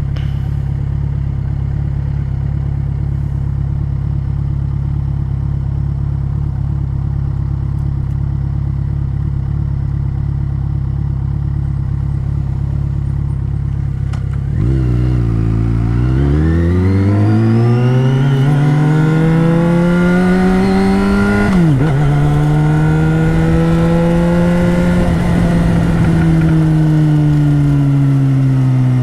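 Yamaha XJ6's 600 cc inline-four engine running steadily. About halfway through, its revs climb as the bike accelerates. A quick dip in revs, an upshift, comes near three-quarters of the way in, then the revs rise briefly and slowly ease off near the end.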